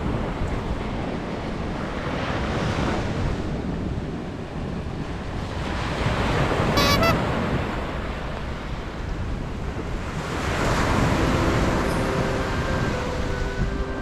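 Sea surf breaking and washing up a sandy beach, swelling and falling back in about three slow surges, with wind buffeting the microphone.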